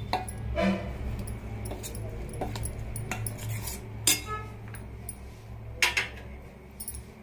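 A steel ladle scraping and clinking against a stainless steel bowl as thick oats-and-semolina batter is stirred, with scattered light clinks and two louder ringing clanks, about four seconds in and just before six seconds.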